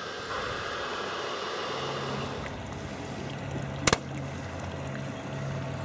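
Lapping water and a steady low hum from a model ship's electric motor, broken by one sharp crack about four seconds in: a shot from a radio-controlled model warship's cannon at close range.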